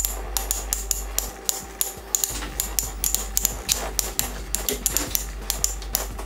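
Two Infinity Nado 3 battle tops spinning in a plastic stadium, knocking into each other again and again with sharp irregular clicks, several a second.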